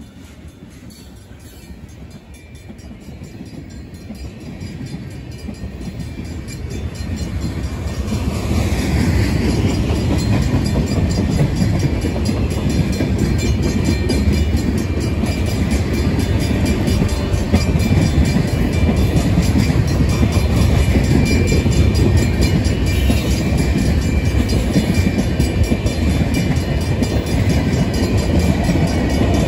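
Freight train's tank cars and open hopper cars rolling past on the track: a steady rumble of wheels on rail that grows louder over the first ten seconds or so and then holds.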